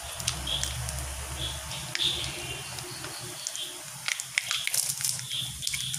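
Mustard seeds frying in hot oil in a kadai: a steady sizzle with sharp crackles and pops, which come much more often from about four seconds in as the seeds start to burst.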